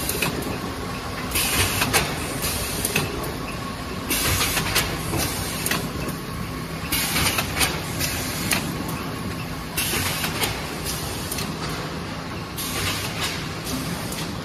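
HL-2000AB double-sheet corrugated carton folder gluer running steadily, its belts carrying boards through, with loud hissing bursts every second or two.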